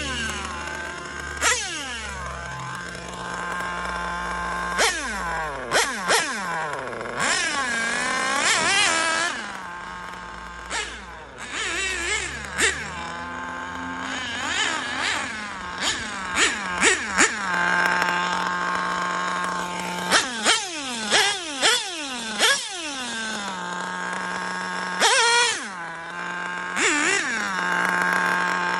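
Picco two-stroke nitro glow engine of a Mugen Seiki MRX-6 RC car idling steadily and being blipped to high revs many times, each rev dropping back down in pitch to idle.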